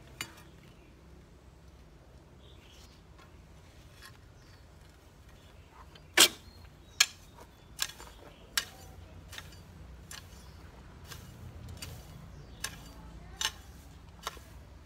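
Bamboo-handled hoe's metal blade striking and chopping into dry, grassy ground: a series of sharp strikes, the loudest about six seconds in, followed by three more about a second apart and a few more near the end.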